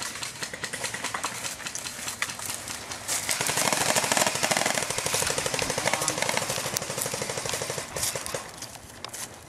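Airsoft rifle fire on full auto: a rapid, even rattle of shots in long strings. It is loudest from about three seconds in until about eight seconds, then fades near the end.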